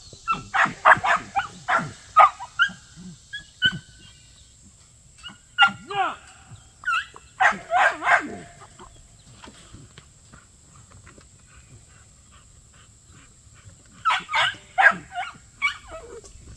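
Dog barking and yipping in three rapid flurries of short, sharp calls, with pauses between them.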